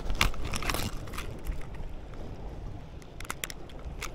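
A few sharp plastic clicks and taps from a small plastic fishing-hook case being handled and opened: a cluster in the first second, then two more near the end. Under them runs a steady low rumble of wind and sea.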